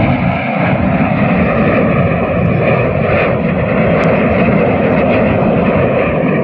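Fixed-wing aircraft flying overhead, a loud, steady engine rush that holds throughout.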